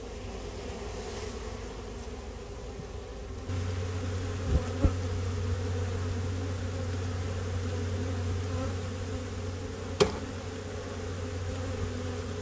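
A swarm of honeybees buzzing steadily, a dense, continuous hum of many bees. About a third of the way in, the hum shifts abruptly to a steadier, lower drone. It is broken by two sharp knocks soon after and a louder single knock near the end.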